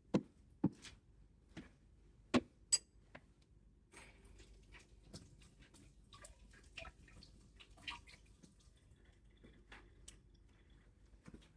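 Faint, scattered clicks and knocks of chopsticks and kitchen utensils being picked up and handled.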